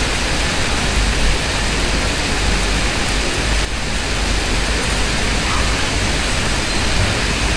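Steady, loud hiss with a low rumble underneath, with a brief dip just under four seconds in.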